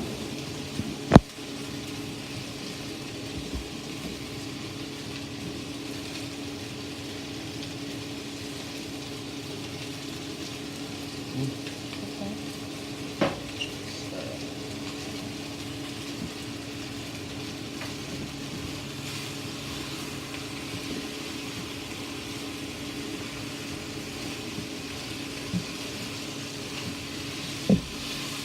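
Sliced chicken and onions frying in oil in a pan, a steady sizzle, with a few sharp knocks of a stirring utensil against the pan, the loudest about a second in.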